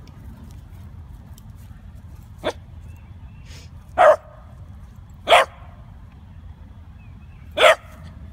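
Beagle puppy barking at a slinky toy: four short single barks a second or more apart, the first one weaker and the last three loud.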